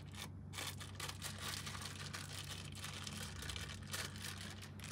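Plastic wrapping crinkling and rustling in the hands as a new saxophone mouthpiece is unwrapped: a run of small crackles over a faint steady low hum.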